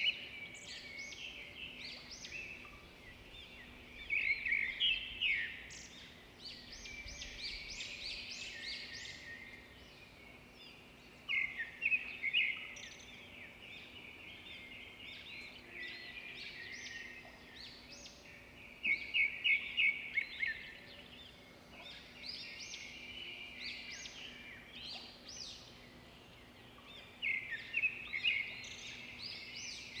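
Songbirds calling. Four loud bursts of rapid chattering notes come about every seven to eight seconds, with fainter chirping in between.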